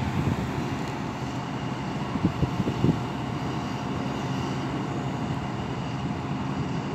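Steady diesel engine drone from river work machinery, even and unbroken, with a few short low rumbles about two and three seconds in.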